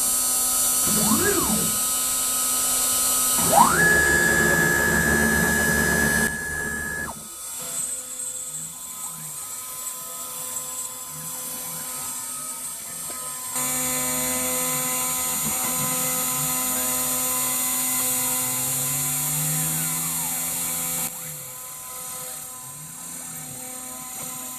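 CNC router at work on UHMW plastic with a small end mill, cutting a groove for an O-ring seal. A few seconds in, the spindle's whine rises quickly to a high steady pitch. Later come gliding, arching motor whines, and a louder stretch of steady noise in the second half.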